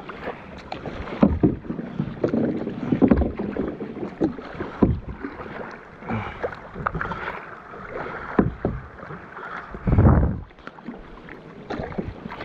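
Double-bladed kayak paddle dipping and splashing on alternate sides of a sit-on-top kayak in irregular strokes, with a heavier low thud about ten seconds in.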